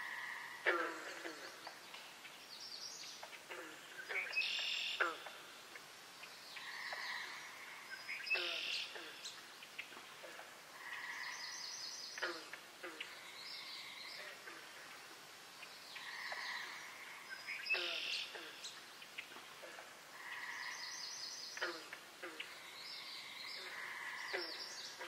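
Looped background soundtrack repeating a phrase about every four seconds: high chirp-like notes, glides falling in pitch, and a pair of held tones.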